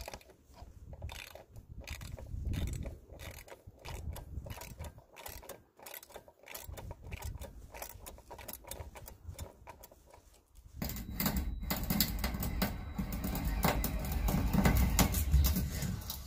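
Scattered clicks and knocks over a low rumble, then about eleven seconds in a much louder, dense mechanical clatter of tool work on boat hardware.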